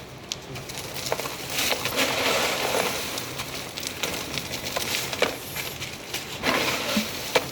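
Ice crushing machine grinding block ice: a steady gritty crunching with scattered sharp clicks and clinks of ice pieces.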